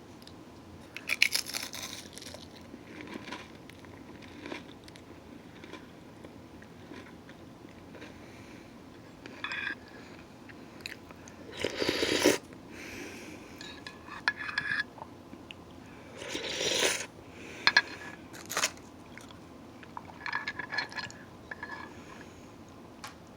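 Crackers being bitten and chewed close to the microphone: a string of separate crisp crunches, irregularly spaced with quiet pauses between them.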